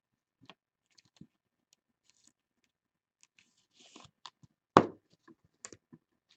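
Trading cards being handled in plastic sleeves and rigid top loaders: scattered light plastic clicks and ticks, a short sliding hiss just before four seconds in, then one sharp knock, the loudest sound, a little before five seconds.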